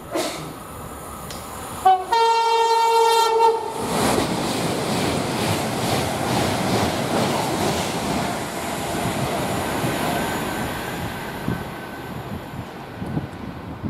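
Train horn sounding a three-tone call: two short notes, then a note held for about a second and a half. The train then passes close at speed, a loud steady rush of wheel and air noise lasting about nine seconds that eases off near the end.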